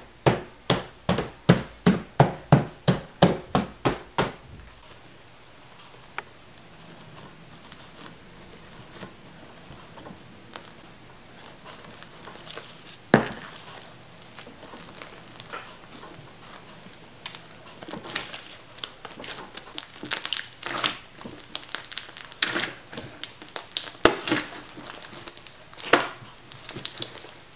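A hammer tapping quickly on the dried, cracked crust of an iceberg slime, about three strikes a second, stopping about four seconds in. Later the broken crust and foamy slime crackle and crunch in uneven bursts as the slime is pulled and kneaded by hand.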